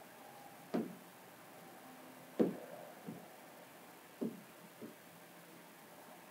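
Soft knocks on a car's hood panel as a squeegee and hand work wet paint protection film: five irregular knocks over about four seconds, the second the loudest, over a faint steady hum.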